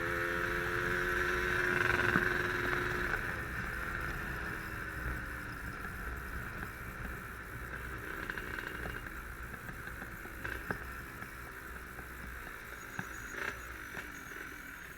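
Two-stroke motorcycle engine running with a steady note for the first few seconds, then easing off and fading away, with a few small clicks near the end.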